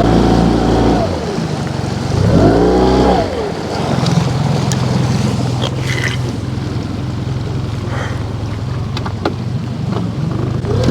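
Boat motor running upriver: at high revs at first, throttled down about a second in, revved up and back down again briefly, then running steadily at low speed.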